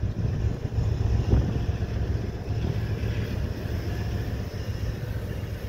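Freight train tank cars rolling over a railway bridge: a steady low rumble of wheels on the rails.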